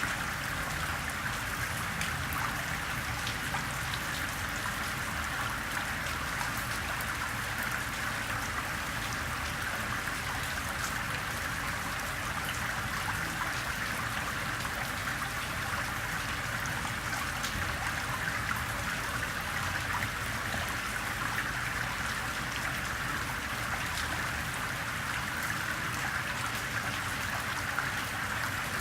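Gentle rain with water running and trickling off a pebble street, a steady wash with scattered faint drop ticks.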